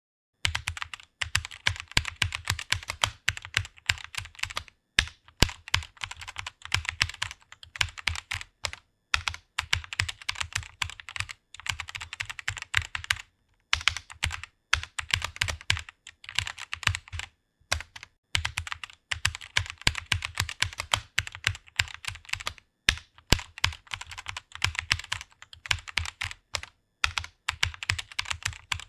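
Fast typing on a computer keyboard: continuous runs of key clicks broken by a few short pauses, starting about half a second in.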